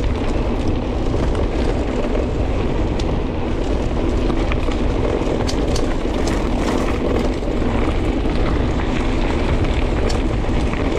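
Mountain bike rolling fast over a loose gravel track: a steady rumble of tyres on stones, with scattered clicks and rattles from the bike.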